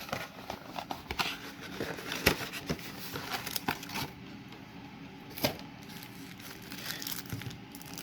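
Close handling of trading cards and their foil pack wrapper: a string of small rustles, crinkles and clicks, busiest over the first half, with a sharper click about halfway through.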